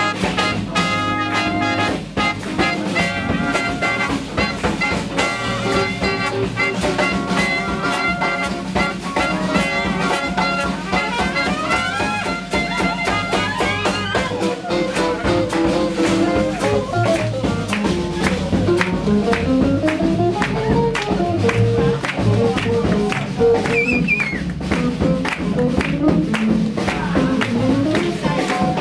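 Live swing jazz band playing: trumpet, trombone and clarinet over walking double bass and a drum kit keeping a steady swing beat. The horns play together at first, and about halfway through a single lower melodic line takes over.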